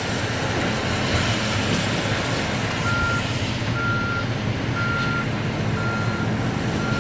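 Heavy construction machine's diesel engine running steadily, with its backup alarm starting about three seconds in: a single steady beep repeating about once a second as the machine reverses.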